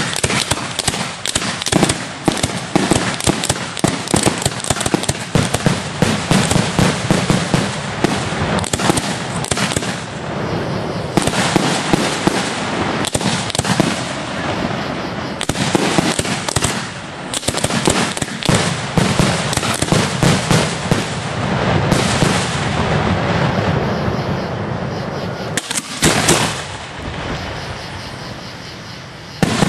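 Professional aerial fireworks display heard from the firing site: a dense, continuous barrage of shell launches, booming bursts and crackle, with a few brief lulls.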